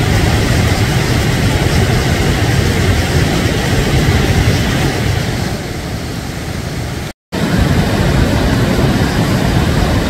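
Steady road and wind noise of a moving vehicle, with a heavy low rumble and a loud even rush, broken by a very brief dropout about seven seconds in.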